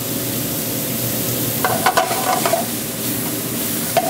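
Julienned vegetables sizzling in olive oil in a skillet over a gas burner, with a brief clatter of the pan being moved about halfway through and again near the end.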